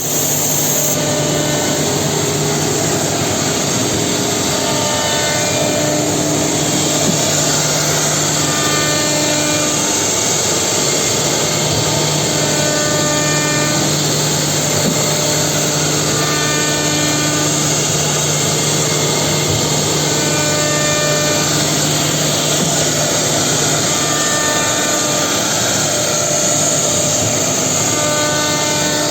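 Holztek HT-R4M four-head CNC router milling concave chair seats in wood: steady noise of the spindles and cutters, with whining tones that shift in pitch every second or two as the heads move.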